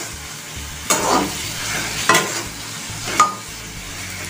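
Pointed gourd pieces stir-frying in hot oil in a pan: a steady sizzle, with the spatula scraping the pan three times about a second apart, the last scrape ringing briefly.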